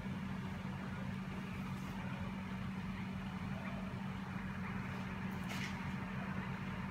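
A steady low machine hum, with a couple of faint clicks.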